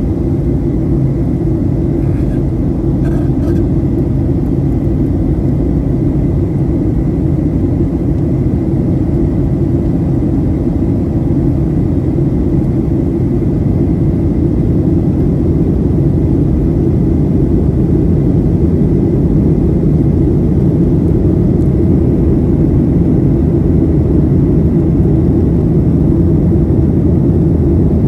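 Steady low rumble of a Boeing 737-800 in flight, heard from inside the passenger cabin: its CFM56-7B engines and the rush of air over the fuselage.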